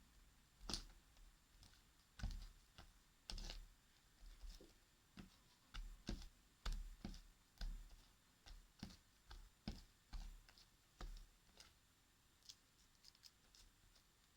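Soft, wet slime being squeezed and stretched by hand, giving irregular sticky clicks and small pops.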